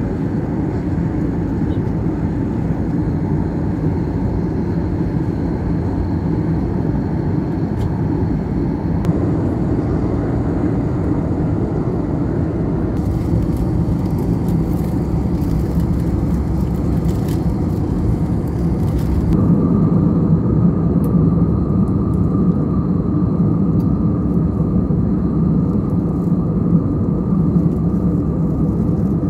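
Steady in-flight cabin drone of an Airbus A320-214, its CFM56 engines and airflow heard from a passenger seat. About two-thirds of the way through the drone grows slightly louder and a steady higher whine joins in.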